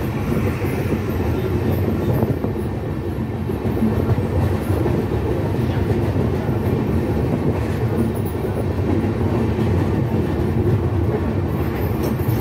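Ekota Express passenger train running along the track, a steady low rumble of its coaches' wheels on the rails, heard from beside the open carriage side.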